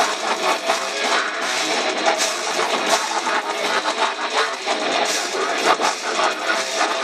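Death metal band playing live: electric guitar, bass guitar and drum kit in a loud, dense, unbroken wall of sound with almost no deep bass.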